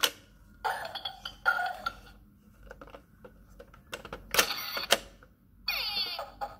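Toy camera's electronic sound effects from its small speaker: a shutter-click sound as the top button is pressed, short sounds after it, a second shutter-click sound about four seconds in and a fast warbling trill near the end. Small plastic button clicks fall between them.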